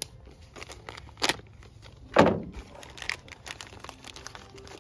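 Plastic parts bag crinkling and rustling as it is handled and opened, in a run of short crackles with two louder rustles, about a second in and just after two seconds.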